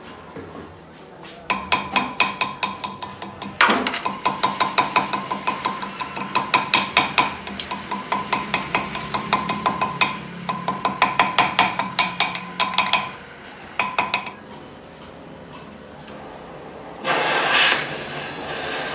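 Hand hammer striking the glowing welded end of a steel gear shaft in rapid ringing blows, about four a second, in a few runs with short pauses. Near the end a gas torch flame starts with a rush of hiss that settles into a steady hiss.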